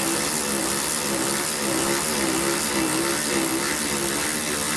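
Cordless electric ratchet running steadily, spinning out the bolt that holds the rear jounce bumper through a 10 mm socket and extension. Its motor whine wavers slightly in pitch.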